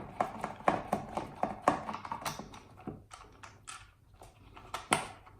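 Rapid, irregular small clicks and taps of a screwdriver and hands working on a power-supply case as its bottom screws are undone. The clicks are densest at first and thin out toward the end.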